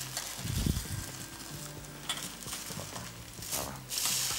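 A filloa (thin crepe) sizzling in a hot greased frying pan while a flat spatula scrapes under it to lift and turn it. The sizzle grows louder about four seconds in.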